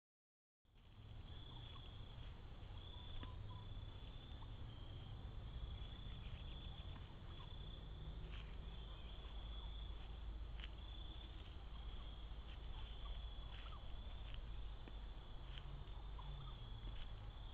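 Insects chirping in a steady high-pitched chorus over a low rumble, starting right after a brief dropout at the very beginning.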